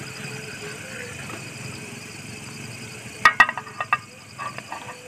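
A steady low hum, with two sharp clicks about three seconds in followed by a short run of lighter clinks and knocks.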